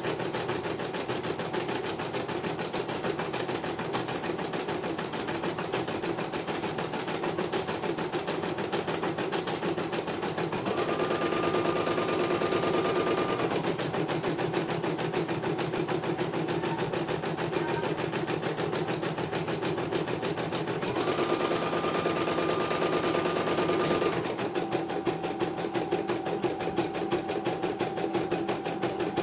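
CNY portable computerized embroidery machine stitching a design, its needle running in a fast, even rattle of strokes. Twice, for a few seconds each, a steady whine joins the stitching and it gets a little louder.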